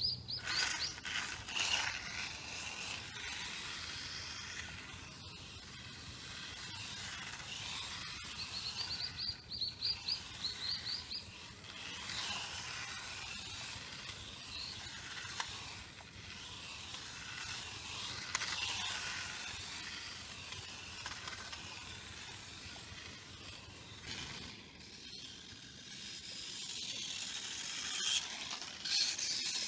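Wltoys K989 micro RC car's small electric motor and gears whining high as it runs on asphalt, swelling and fading with its passes and loudest near the end as it comes close. A bird gives a quick run of short chirps about nine to eleven seconds in.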